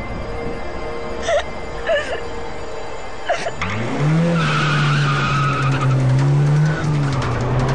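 Film soundtrack with background music: three short sharp sounds, then about halfway through a car engine revs up and holds steady while tyres squeal.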